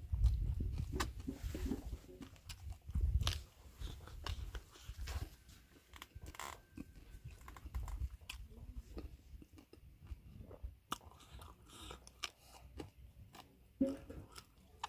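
A person chewing and biting food close to the microphone, likely pork and smoked chicken, with wet mouth clicks and small crunches. The chewing is heaviest in the first three seconds, then softer and more scattered.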